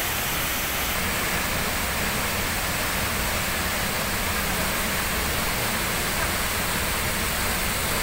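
Tall waterfall plunging into a rocky pool: a steady, even rush of falling water.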